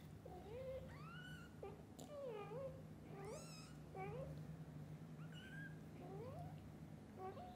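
Young kittens mewing again and again, thin high calls that often slide upward in pitch, about ten of them, over a low steady hum.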